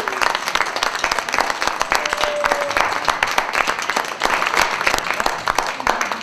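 Audience applauding steadily, with a short held voice about two seconds in.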